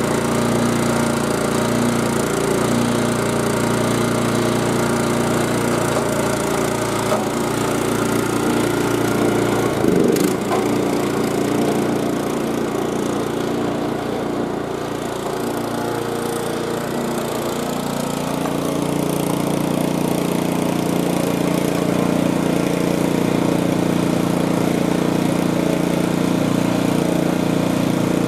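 Commercial 36-inch Yazoo/Kees walk-behind mower's engine running steadily while the mower is driven on a test run to check freshly adjusted drive belts. There is a single sharp knock about ten seconds in. The engine is slightly fainter in the middle and then settles into a stronger, even hum.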